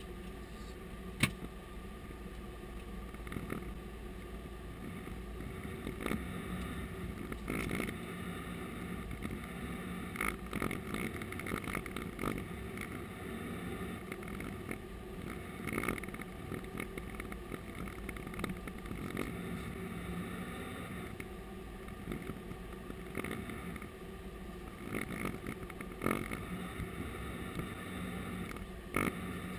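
Airbus A330-200 cockpit noise during a slow taxi: a steady hum with a few level tones, broken by scattered light rattles and clicks, with one sharp click about a second in.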